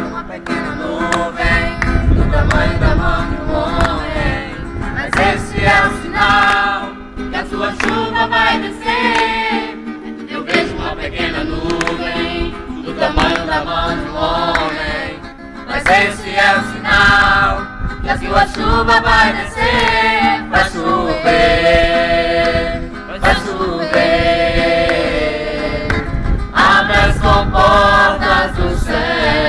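A small group of voices singing a worship song together, accompanied by one acoustic guitar.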